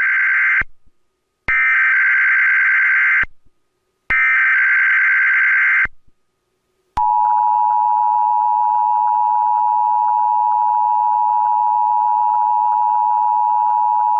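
Emergency Alert System SAME header: the tail of one burst of shrill warbling data tones, then two more identical bursts of about two seconds each, the digital code that opens a Required Monthly Test. About seven seconds in, the steady two-tone EAS attention signal starts and holds to the end.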